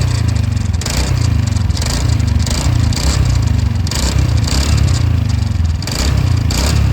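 TVS Ntorq 125 scooter's single-cylinder engine running loudly, with a harsh noise from the self-starter side that comes in bursts about once a second over the steady engine note. This is the starter-area fault noise that the mechanic goes on to trace by opening the starter assembly and magneto.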